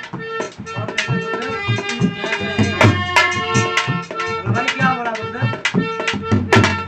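Harmonium playing sustained chords over a quick dholak rhythm in an instrumental passage of Indian folk music.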